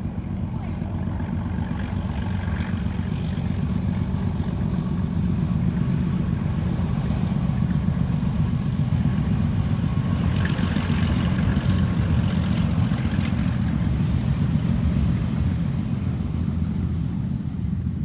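Wind buffeting the microphone: a loud, uneven low rumble that swells a little after the first few seconds.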